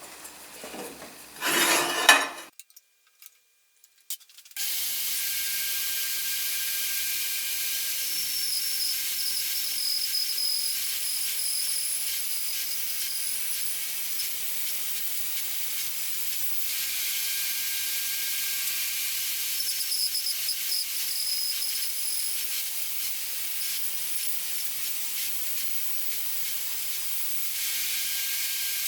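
Power saw running steadily with a hissing, high-pitched sound while ripping Sapele into 12 mm strips. A short loud knock comes about two seconds in, followed by a brief gap before the saw sound starts.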